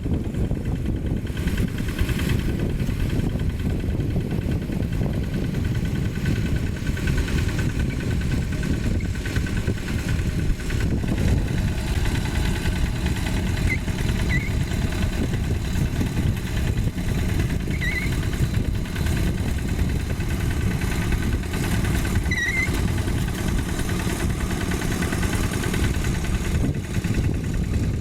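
Single-cylinder Yanmar diesel engine of a Quick G1000 hand tractor chugging steadily while ploughing topsoil. A few short high chirps come through in the middle.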